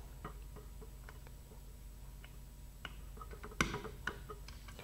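Faint, scattered light clicks and ticks, with a sharper cluster of clicks about three and a half seconds in: an X-Acto knife trimming excess resin off the seam of a fiberglass nose cone.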